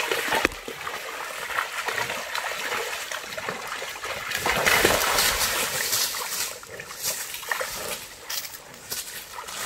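Creek water splashing and trickling while a mini bull is bathed in shallow water, with a louder stretch of splashing around the middle.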